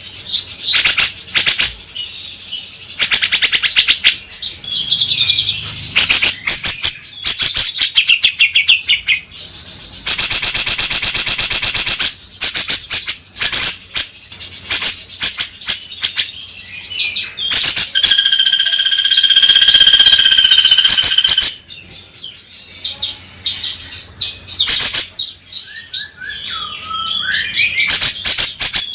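Cucak jenggot (grey-cheeked bulbul) calling loudly in a run of bird-lure song: repeated bursts of harsh chatter and warbled phrases, a rapid rattling trill about ten seconds in, and a long steady whistled note about two-thirds of the way through.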